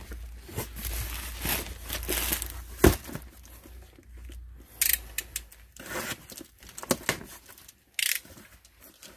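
Packaging being handled and torn open: irregular crinkling and tearing, with a sharp knock about three seconds in.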